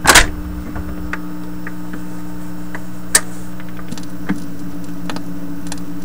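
Steady mains hum from the Viking Model 324 solid-state record player's amplifier and speaker, the buzz typical of players of this vintage. A loud click right at the start, another sharp click about three seconds in, and faint scattered ticks.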